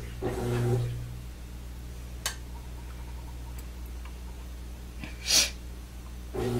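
A short, sharp sniff about five seconds in, over a low steady background hum, with a faint tick about two seconds in.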